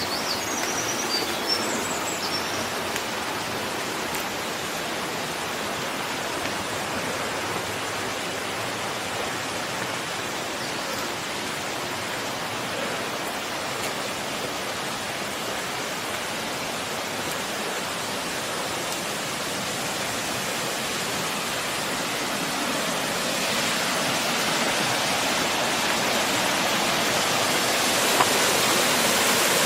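Steady rush of flowing water, growing louder near the end.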